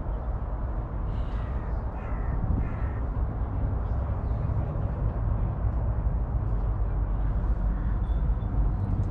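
A few short bird calls in the first three seconds, over a steady low rumble.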